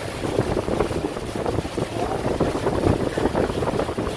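Tour boat under way: a steady rumble of its motor with wind buffeting the microphone.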